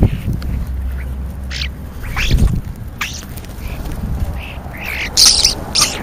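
European starlings feeding right at the microphone, giving a string of short, harsh squawks and calls, the loudest about five seconds in, with a few dull low thumps mixed in.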